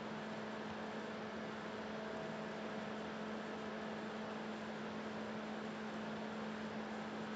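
Steady low electrical hum over an even hiss: background noise of the recording.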